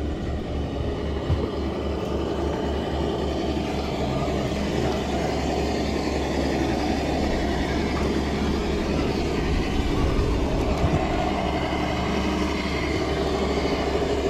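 A Traxxas TRX-4 RC crawler's electric motor and geared drivetrain whirring steadily as it crawls over rocks and wooden planks. There is a sharp knock about a second in and a few smaller knocks later on.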